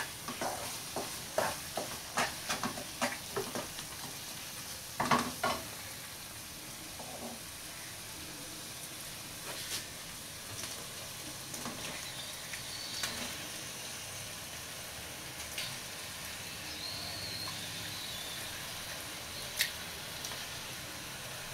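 A spatula scraping and tapping in a nonstick pan of gongura (sorrel) leaf paste, over a steady sizzle. The tapping is quick at first and thins out after about five seconds, leaving the sizzle with only an occasional click.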